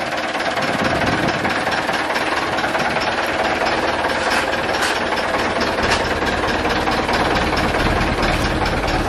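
Massey Ferguson tractor's diesel engine running steadily with a fast, even clatter.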